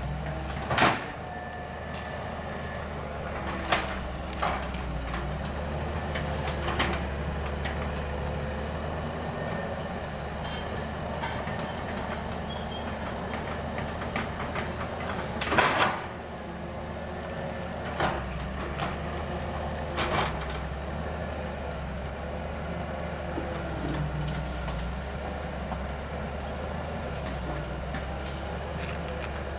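Excavator engine running with a steady low hum, with sharp knocks and clanks every few seconds; the loudest, a short cluster, comes about halfway through.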